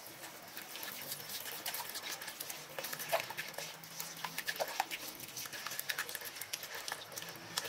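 A silicone spatula stirring flour into a wet dough in a stainless steel bowl: a run of irregular wet squelches and small clicks.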